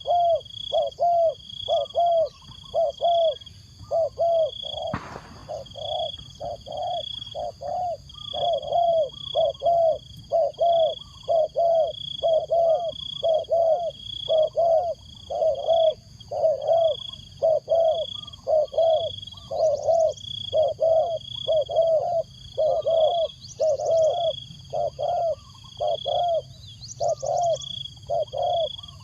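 Spotted dove cooing steadily, a long run of short low coos at a little under two a second: a decoy bird's call used to lure wild doves. Insects trill steadily in the background, and there is one sharp click about five seconds in.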